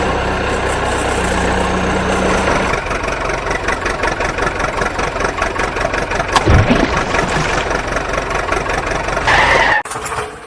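Vehicle engine idling with a fast, even chugging, ending with a brief higher burst before it drops away near the end.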